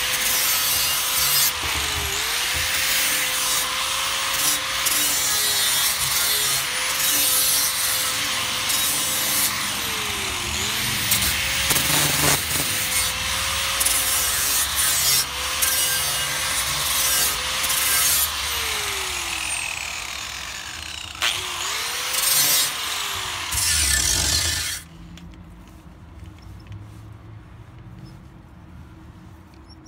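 A high-speed electric power tool cutting metal. Its motor whine dips in pitch each time it bites and then recovers, several times over. It stops abruptly about 25 seconds in.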